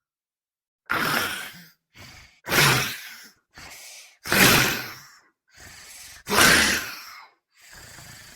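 Goblin creature vocal effect: harsh, heavy breathing, with four loud hissing exhales about every second and a half to two seconds, each followed by a quieter, shorter breath in.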